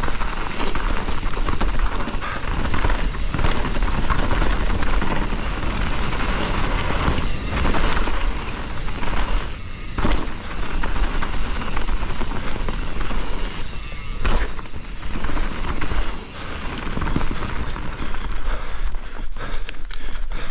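Privateer 161 enduro mountain bike riding fast down a rough dirt trail: wind rumbling on the microphone over tyre noise, with repeated knocks and rattles as the bike hits bumps.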